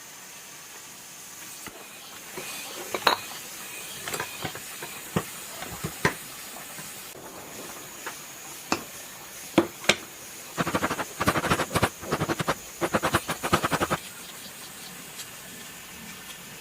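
Hand work on metal parts: scattered clinks and knocks, then about three seconds of rapid rattling, over a steady faint hiss.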